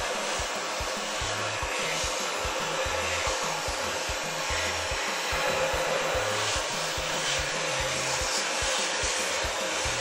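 Electric heat gun blowing hot air steadily, aimed down through a floor drain cover onto a PVC pond liner to soften it.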